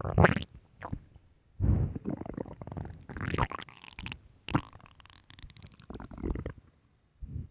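Empty, hungry stomach growling: a series of irregular gurgles and rumbles with short gaps between them, and a higher, squeaky gurgle in the middle.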